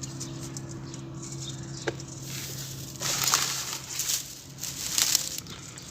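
Dry, hardened cement lumps crunching and scraping as they are broken and pushed along with a stick. The grit is loudest in two rushes in the second half, over a steady low hum that fades out near the end.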